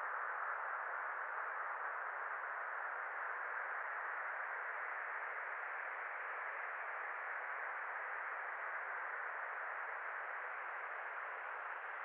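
A steady, dull hiss of ambient noise with no highs or deep lows, and no tones or rhythm in it, slowly easing off a little.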